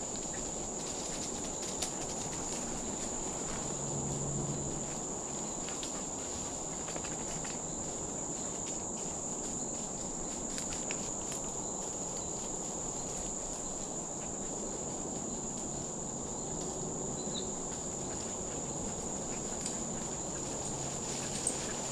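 Steady, high-pitched drone of insects, with faint crunching of footsteps in dry leaf litter.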